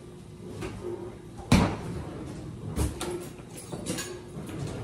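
Kitchen door being shut: a sharp thump about a second and a half in, a second knock just over a second later, then a few light clicks.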